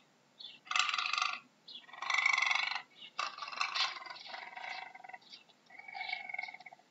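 Puma (cougar) calling: a series of about four short pitched calls with gaps between them, the last one held on a steady pitch near the end.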